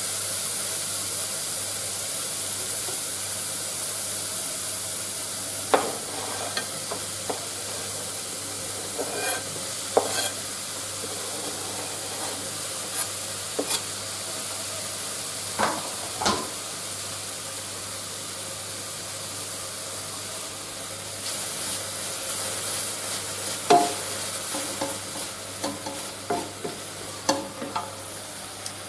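Leek and bacon sizzling steadily in a frying pan as they are stirred, with a few sharp knocks and scrapes of the utensil against the pan.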